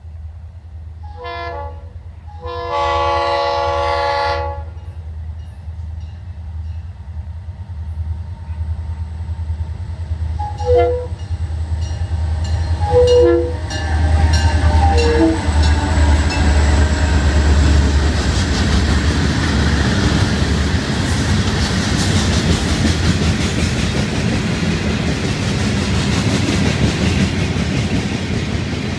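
Florida East Coast freight train approaching and passing: the diesel locomotives' horn sounds several blasts, one short, one long, then shorter lower ones. The engines' rumble peaks as the locomotives go by, and it gives way to the steady rolling rumble and wheel clatter of loaded hopper cars.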